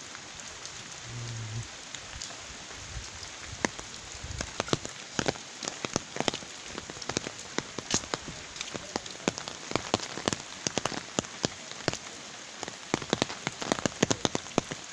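Rain falling steadily: a constant hiss with many sharp, separate drop taps that begin about two seconds in and come thicker toward the end.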